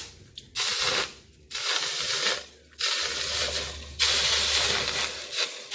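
Red-hot NeoCeram glass-ceramic fireplace glass plunged into water, the water hissing into steam in about four surges of roughly a second each. The glass comes through the thermal shock without cracking.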